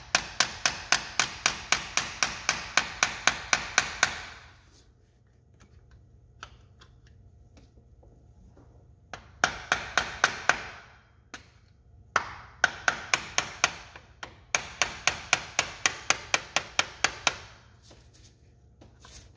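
Hammer tapping rapidly, about four to five blows a second, in runs of a few seconds with pauses between, to break the gasket-maker seal and free the timing chain tensioner access cover.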